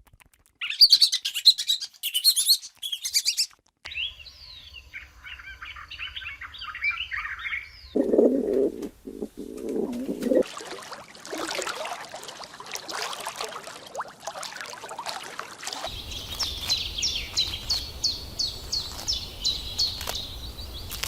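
A run of bird calls and chirps from several edited-together clips, changing abruptly every few seconds; near the end, quick repeated high chirps, several a second.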